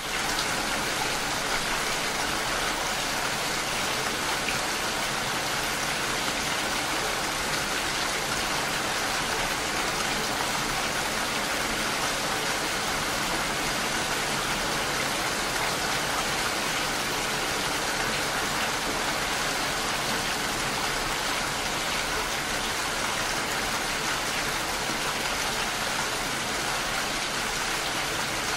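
Steady rain falling, an even hiss that runs without a break.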